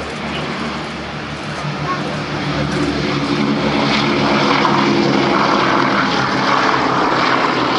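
Four radial piston engines of a World War II four-engine bomber at takeoff power, the propeller noise swelling louder from about two seconds in as the bomber makes its takeoff run.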